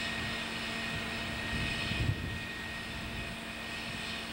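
Diesel-electric locomotives running: a steady engine drone with a thin, steady high whine over it.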